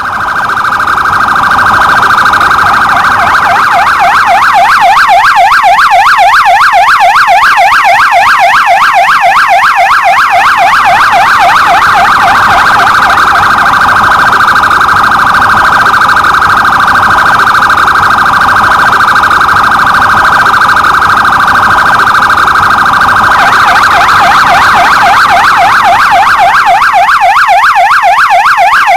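Police patrol car siren sounding a fast warbling yelp, its pitch swinging rapidly up and down several times a second. Near the end its tone turns brighter.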